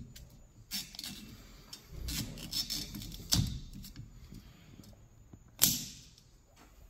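Plastic clicks and rattles of a wiper blade being handled and fitted onto a wiper arm's hook. Sharper clicks come about halfway, and the loudest snap comes near the end.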